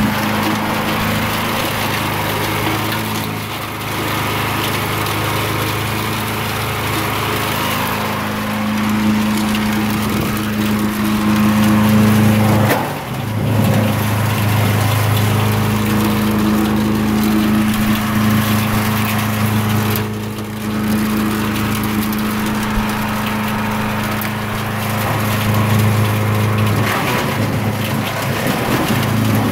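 Ztrust wood chipper-shredder with a 420cc, 13 hp single-cylinder petrol engine running at speed while chipping branches, with continuous crackling and splintering of wood in the cutters. The engine note dips briefly a few times, most sharply about thirteen seconds in and again near twenty seconds, as thicker pieces load it, then picks back up.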